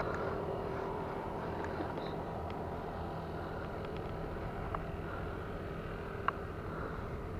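Steady low background noise, as of a distant engine or traffic, with a few faint clicks, the sharpest about six seconds in.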